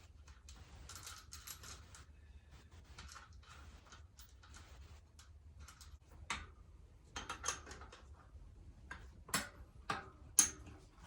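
Scattered light clicks and metallic clinks of tools and bike parts being handled during electric bike assembly, with soft rustling early on and sharper clicks in the last few seconds.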